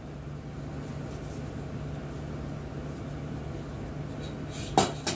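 Steady low hum of the room, with two sharp knocks close together near the end, the first the louder.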